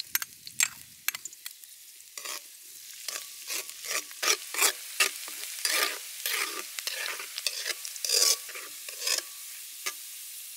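Minced garlic sizzling in hot oil in a wok, the sizzle building after about two seconds, with a metal spoon scraping and stirring against the pan about twice a second.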